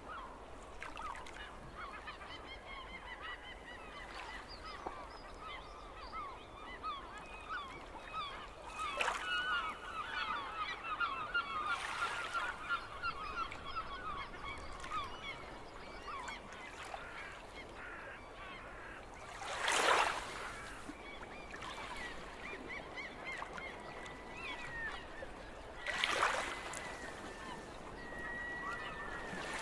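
A flock of seagulls calling continuously, with many short cries overlapping. Sea waves splash in a few brief louder washes, the strongest about twenty seconds in and at the very end.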